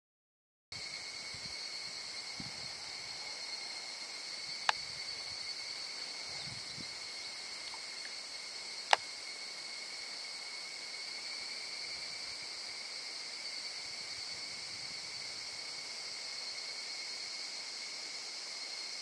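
Steady chorus of insects, a constant high-pitched buzz that starts just under a second in, with two sharp clicks a few seconds apart.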